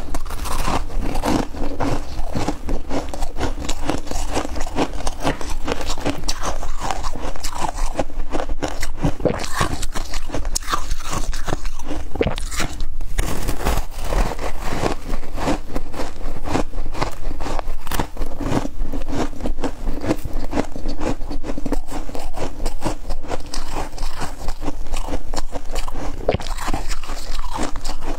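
Close-miked biting and chewing of a packed slab of freezer frost: a dense, unbroken run of crisp crunches.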